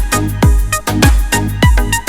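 Electronic dance music with a deep kick drum about every 0.4 seconds and sharp percussion between the kicks.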